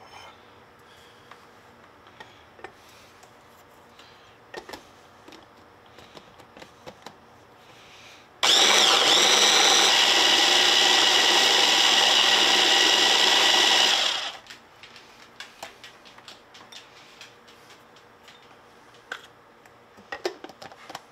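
Breville Control Grip immersion blender's motor head running on its chopper bowl, pureeing peaches and chili peppers: it starts about eight seconds in with a brief rise in pitch, runs steady for about five seconds, then stops. Quiet clicks and knocks of the unit being handled come before and after.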